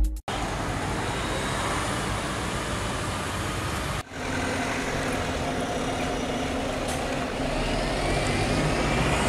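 Steady street traffic noise of cars passing, broken off for a moment about four seconds in, with a faint rising engine note near the end.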